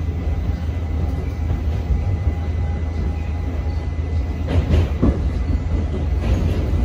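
Inside a moving R68 subway car: the steady low rumble of the train running on the rails, with a few sharp clacks about four and a half to five seconds in and once more near the end.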